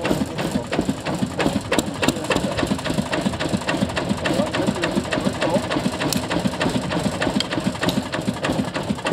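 1940 Ruston & Hornsby narrow gauge diesel locomotive's engine idling with a rapid, even beat.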